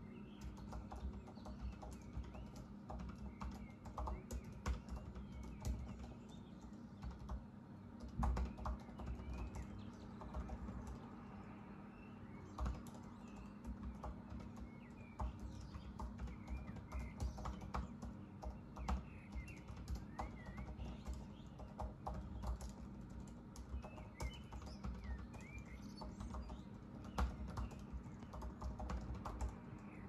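Typing on a Mac laptop keyboard: irregular runs of soft key clicks with short pauses between. Small birds chirp in the background, over a steady low hum.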